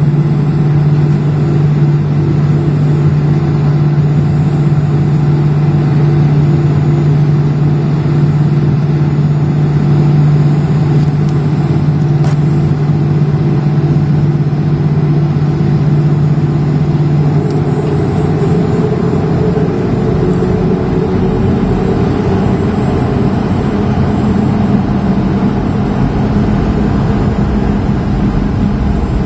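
Cabin noise of a Boeing 737-300 over the wing while it moves slowly along the runway: a steady hum of its CFM56-3 engines and cabin air. About two-thirds of the way through, the pitch of the hum shifts upward a little.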